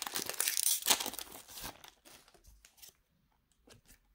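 Foil wrapper of a Pokémon trading-card booster pack being torn open and crinkled, a dense crackle for about the first two seconds, then a few faint ticks and rustles.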